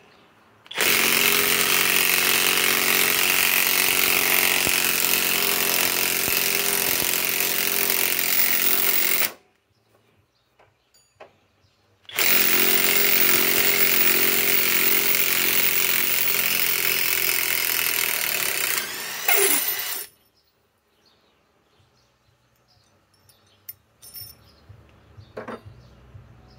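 SKIL mid-torque cordless impact wrench hammering as it backs a long lag screw out of hardwood. It runs in two long bursts of about eight seconds each, about three seconds apart, and the second ends in a brief change of pitch before it stops. A few light clicks follow.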